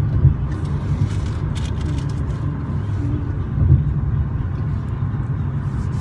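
Steady low rumble of a car heard from inside the cabin, typical road and engine noise of a moving car.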